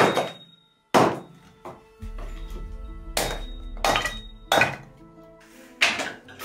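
Hatchet splitting wood into kindling on a chopping block: six sharp chops, spaced unevenly. Background music comes in about two seconds in.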